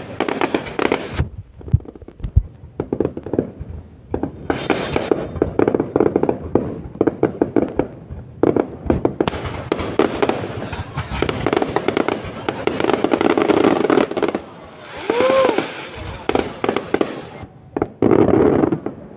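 Fireworks going off: dense crackling and banging of aerial shells in waves, with short lulls between volleys and a brief whistle about fifteen seconds in.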